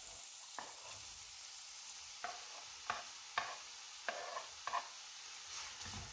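Champignon mushrooms frying in butter in a frying pan, with diced onion being added and stirred in with a wooden spatula. A steady soft sizzle runs throughout, broken by about six short scrapes and knocks of the wooden spatula.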